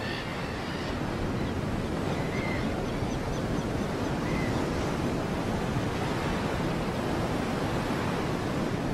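Ocean surf washing on a rocky shore with wind, a steady rushing noise, with a couple of faint short high chirps.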